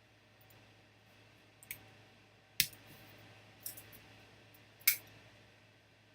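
Four sharp clicks and taps spread over a few seconds, as of items being handled on a table, over a faint steady low hum.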